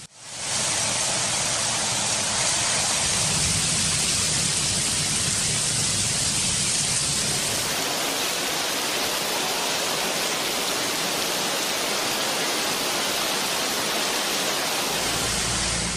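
Heavy rain falling steadily as a dense, even hiss. Its sound shifts slightly about eight seconds in, and a low rumble joins near the end.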